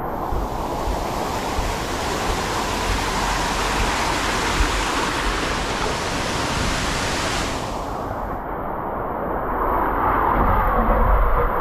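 Rushing water at a water slide: a steady full hiss that cuts off about eight seconds in, leaving a lower rush that grows louder near the end.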